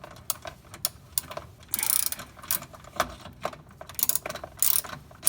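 Socket ratchet clicking in quick bursts as it is swung back and forth, undoing a 10 mm screw on a trim cover.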